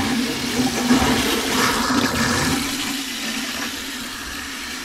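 Water rushing from an RV kitchen faucet into the sink basin as the line pressure is released with the water supply shut off; the flow gets quieter over the last couple of seconds as the pressure drops.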